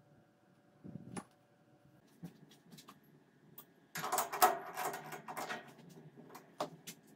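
Rusty steel tube knocking and rattling against the jaws of a lathe's three-jaw chuck as it is pushed into place: a cluster of metallic clatters lasting about a second and a half. A few sharp clicks follow as the chuck is tightened, and a single soft knock comes about a second in.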